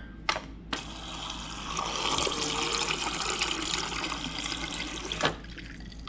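LG French door refrigerator's door dispenser running a stream of water into a glass holding ice. The stream starts just under a second in, after a short click, and cuts off sharply near the end.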